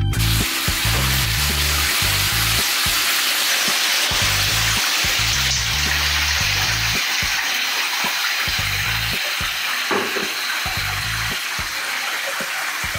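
Water spraying and running steadily into a filled bathtub, a constant rushing hiss, over background music with a stepping bass line.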